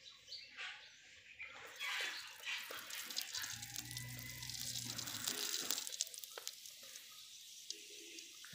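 Paratha sizzling on a hot iron tawa as oil goes on: a steady hiss with scattered small crackles, starting about a second and a half in.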